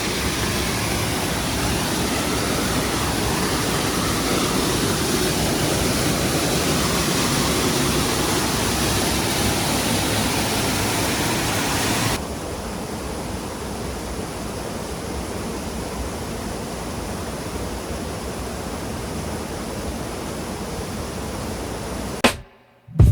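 Waterfall: a steady rush of falling water that drops suddenly to a quieter rush about halfway through.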